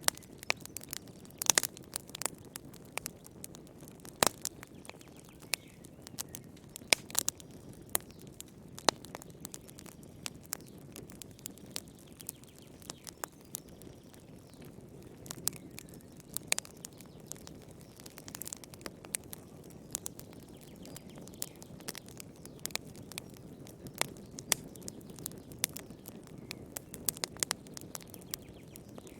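Wood fire in a fireplace crackling: irregular snaps and pops, a few of them sharp and loud, over a steady low rush of the flames.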